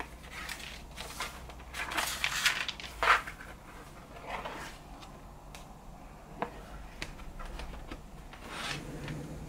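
Paper pages of a hardcover book turned by hand: a string of rustles and swishes every second or two, the loudest about three seconds in, with a few light taps. The book is shut near the end.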